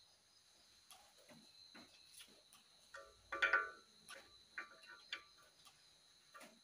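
Light metallic ticks and clinks of small parts being handled against a bare Volkswagen air-cooled engine case. A louder, ringing metal clink comes about halfway through, and two smaller ringing clinks follow a second or so later.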